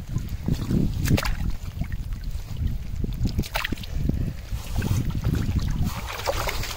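Wind buffeting the microphone with a steady low rumble, and a few brief splashes and sloshes of water as a pike is let back into the water.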